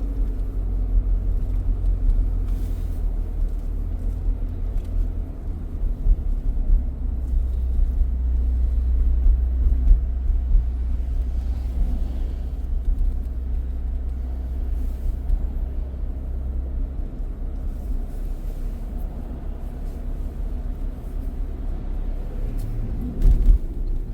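Steady low rumble of a car driving, heard from inside the cabin: engine and road noise with no sharp events.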